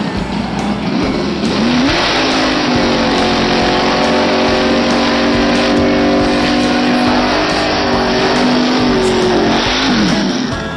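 1974 Dodge Dart's engine revving up, held steady at high revs for about eight seconds, then dropping back near the end.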